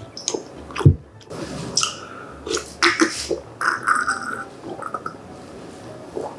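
Close-miked eating sounds: chewing and slurping pork gochujang stew with rice, wet squishy mouth noises with small clicks and a low thud about a second in.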